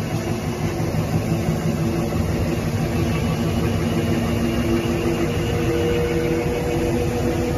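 Paper rewinding machine running at speed, rewinding a paper web onto a roll: a steady mechanical hum and whir of the drive and rollers, with a few held tones.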